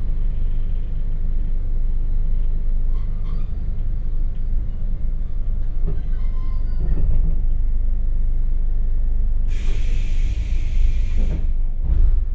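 Onboard sound of a JR Hokkaido 721 series electric train car (MoHa 721) running slowly near a stop: a low rumble with a steady low hum, which the uploader takes for the 50 Hz AC transformer hum. About nine and a half seconds in, compressed air hisses loudly for about two seconds, followed by a thump near the end.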